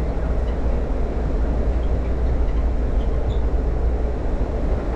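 Moving train running with a steady low rumble.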